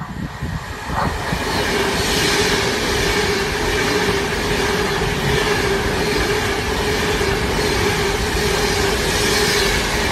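Class 390 Pendolino electric express train passing a station platform at speed: steady wheel-on-rail and air noise with a steady hum beneath. It builds over the first couple of seconds, then holds.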